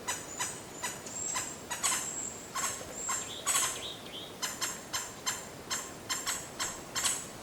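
Small birds chirping: short, high chirps with a few brief whistled notes, settling about halfway through into a quick, even run of about four chirps a second.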